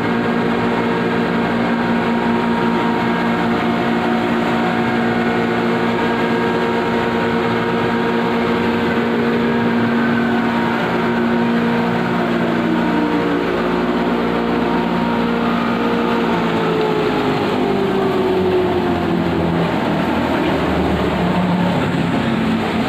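Machinery of a red chilli powder grinding plant running: electric motors and grinders give a steady, loud mechanical hum with several whining tones. In the second half, some of the tones slide slowly downward in pitch.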